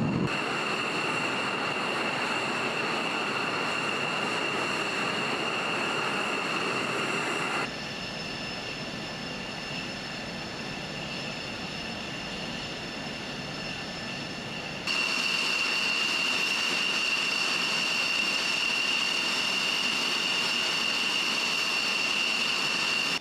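Saab JAS 39 Gripen fighter jet idling on the ground: a steady high turbine whine with several steady tones over a hiss. It drops in level about a third of the way in and comes back louder past the middle.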